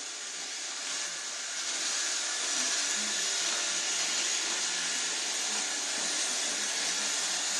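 Robot vacuum cleaner running, a steady whirring hiss that grows louder about two seconds in.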